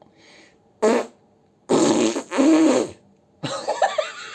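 A run of about four loud fart noises, the middle two close together.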